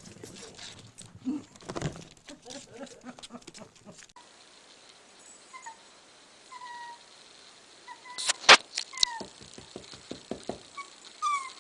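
A corgi puppy whimpering in short, high, falling whines spaced a second or more apart, with a sharp knock about eight and a half seconds in and a run of light taps after it.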